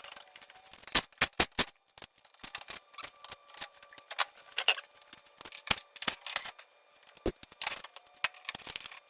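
Irregular sharp clicks and taps of parts being handled during ATV repair work, with louder clusters about a second in and again near the end.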